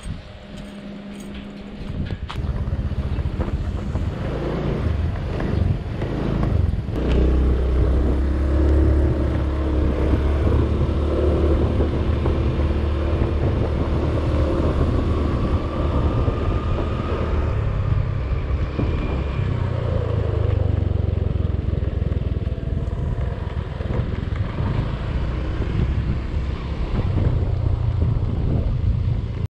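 Motor scooter engine pulling away and running steadily while riding, with wind rumbling on the microphone. It is quiet for the first couple of seconds, then the engine and wind noise build and hold steady from about seven seconds in.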